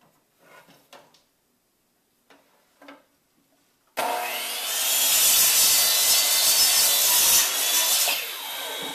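Pro-Tech miter saw switched on about four seconds in, its motor whining up to speed as the blade is lowered and cuts through pallet wood. Near the end the trigger is released and the blade winds down with falling pitch. A few faint handling clicks come before the start.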